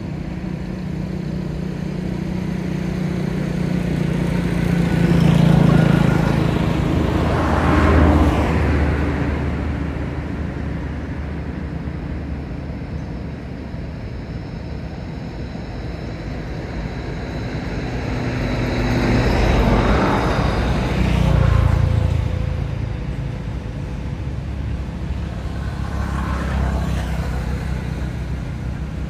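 Road traffic: motor vehicles passing, with engine noise that swells and fades, loudest about six to eight seconds in and again about twenty seconds in, over a steady low hum.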